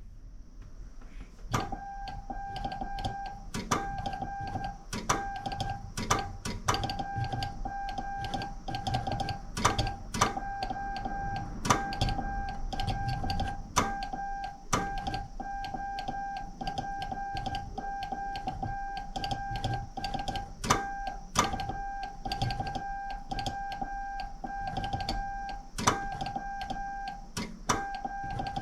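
Morse code sent by hand on a straight key: a steady sidetone beep keyed on and off in dots and dashes, with sharp clicks from the key.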